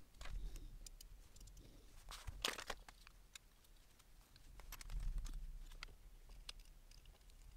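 Faint handling noises from assembling a laser engraver kit's aluminium frame: scattered small clicks of parts and a small screwdriver, a short rustle about two and a half seconds in, and dull bumps near the start and again about five seconds in.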